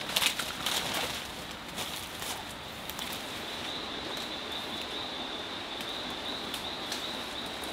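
Forest ambience with a steady high-pitched drone throughout. Rustling and a few sharp clicks, like footsteps in leaf litter, fall in the first two to three seconds.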